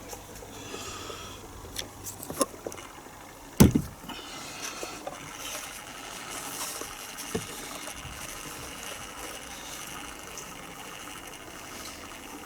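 A few sharp clicks and knocks, then one loud thump about three and a half seconds in, followed by a steady faint background noise. A low hum stops shortly before the thump.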